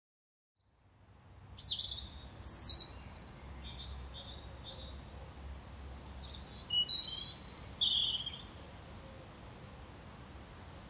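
A small songbird singing outdoors: a few high, thin phrases of quickly falling notes, starting about a second in and again around seven to eight seconds, with softer chirps between.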